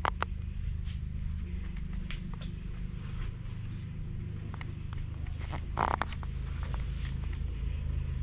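Steady low machine hum, with scattered rustles and light scrapes over it; the loudest scrape comes about six seconds in.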